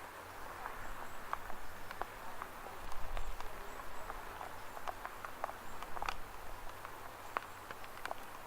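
Summer rain falling, a steady hiss with many irregular drops ticking sharply on nearby surfaces.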